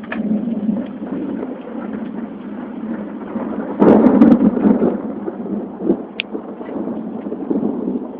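Thunder rumbling, swelling to a louder peak about four seconds in, recorded on a phone's microphone.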